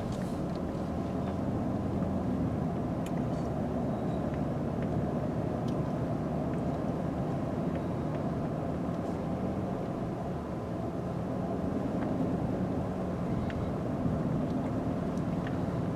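Steady engine and road noise of a moving vehicle, heard from inside the cabin, with a few faint ticks.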